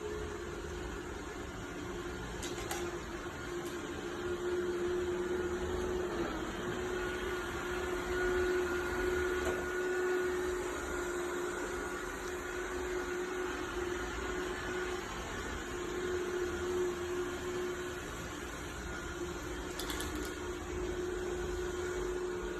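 Roomba robot vacuum running, a steady motor hum and whine with a soft hiss, broken by a couple of faint ticks.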